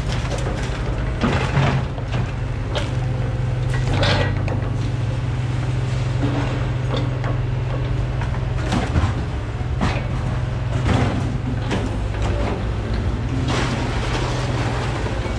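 Diesel engine of a scrapyard material-handler excavator running steadily while its orange-peel grapple is swung into place over a scrapped truck. Several sharp metal clanks and creaks break through the engine hum.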